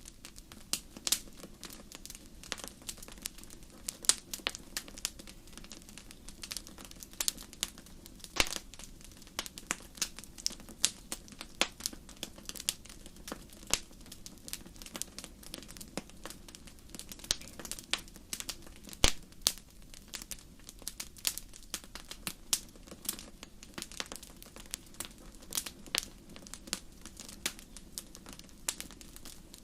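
Wood fire crackling in a fireplace: irregular sharp pops and snaps, several a second, over a low steady rumble of the burning fire.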